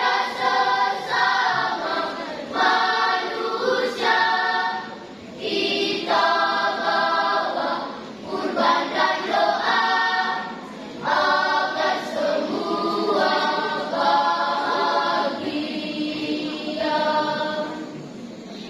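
A children's choir singing in several voices, in phrases broken by short breaths every two or three seconds. The singing ends shortly before the end.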